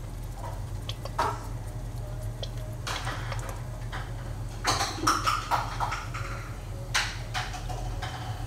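Kitchen sounds at a gas stove: a steady low hum under a few light clinks and knocks, about one, three, five and seven seconds in, as a bottle of dark soy sauce is poured over diced potatoes in a stainless steel pot.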